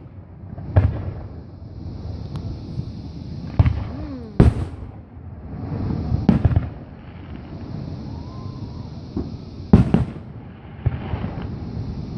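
Aerial firework shells bursting overhead: sharp bangs every second or few seconds, the loudest about four and a half and ten seconds in, with a low rumble between them.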